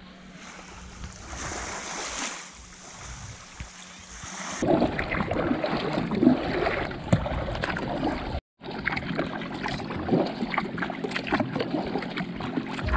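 Soft wash of calm sea on the shore, then a kayak paddle dipping into calm sea: irregular splashes and drips of water running off the blades and slapping at the plastic hull.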